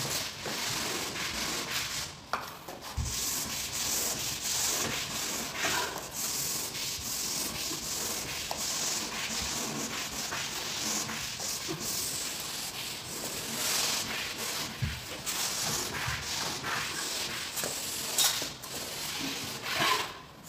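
A hand-held tool rubbing and scraping over textured vinyl wallpaper as the freshly hung sheet is worked flat against the wall: a continuous rough, hissing rub that rises and falls with the strokes and stops near the end.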